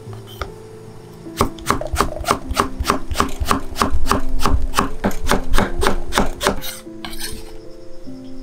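Kitchen knife slicing an eggplant on a wooden cutting board: a steady run of quick chops, about four a second, each knocking through to the board. Soft background music with held notes plays underneath, and a short scrape comes near the end.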